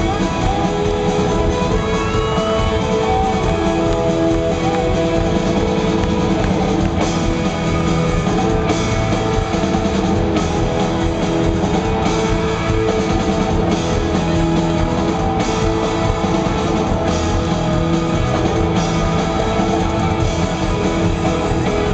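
Live band playing a loud, steady rock song on electric and acoustic guitars, with sharp accents about every second and a half from about seven seconds in.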